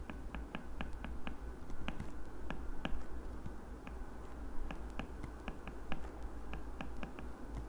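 Stylus tip clicking and tapping on a tablet screen during handwriting: irregular sharp clicks a few times a second, over a low steady hum.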